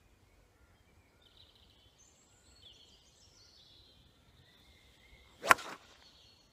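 A 5 iron striking a golf ball on the fairway: one sharp click about five and a half seconds in, with a short swish trailing after it. The shot was struck thin.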